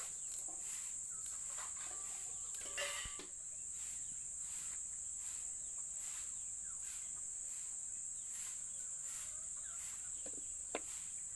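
Crickets chirping: a steady high-pitched trill with an even pulsing over it. A single sharp click stands out near the end.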